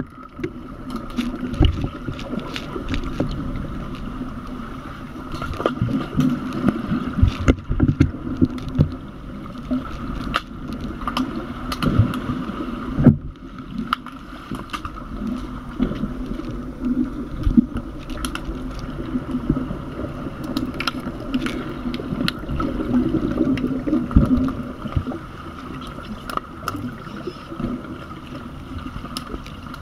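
Muffled underwater pool sound picked up by a submerged camera: a steady churning rumble with a faint hum, broken by many scattered clicks and knocks from the underwater hockey game on the pool bottom.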